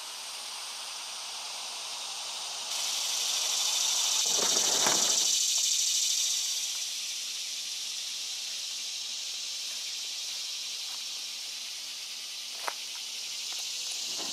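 Outdoor insect buzzing: a high, hissing drone that starts abruptly about three seconds in, swells and then eases back a few seconds later. A brief rustle comes about five seconds in, and a single click near the end.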